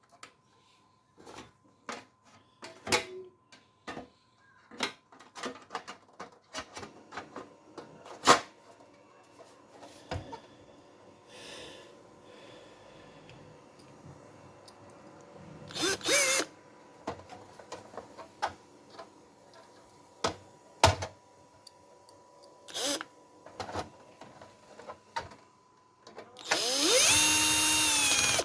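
Small clicks and knocks of hardware being handled, with a cordless electric screwdriver whirring briefly about 16 seconds in and again for about two seconds near the end, its pitch rising as it spins up.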